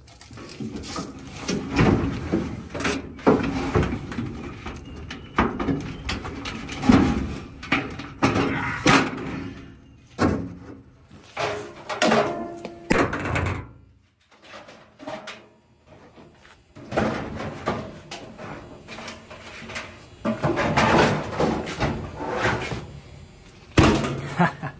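Sheet-metal panels of a GE/Hotpoint electric dryer being handled and pulled off: irregular clunks, knocks and scrapes of metal, with a quieter pause about halfway through.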